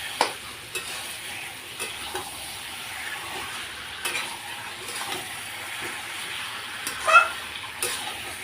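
Chicken and onion-tomato masala frying in a kadhai with a steady sizzle, stirred so that the utensil scrapes and clicks against the pan now and then; the loudest scrape comes about seven seconds in.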